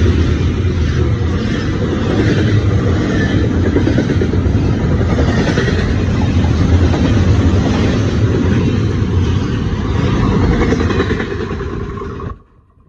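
Double-stack intermodal container freight train rolling past close by: a loud, steady rumble and clatter of the cars' wheels on the rail. It cuts off abruptly near the end.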